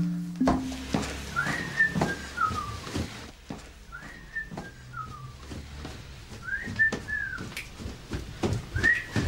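A short whistled phrase, rising to a held high note and then falling in steps, repeated four times about every two and a half seconds, with scattered knocks and clicks.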